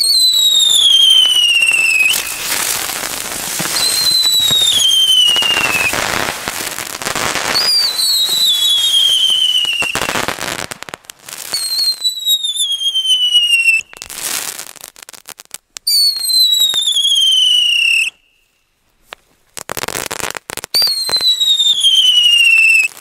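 A mass ignition of whistling ground fireworks (Feuerfalke and Bodenwirbel ground spinners): about six loud whistles in a row, each falling in pitch over about two seconds and then cutting off, over a rush of hissing and crackling sparks. It drops briefly to near silence about three quarters of the way through, then one more whistle sounds.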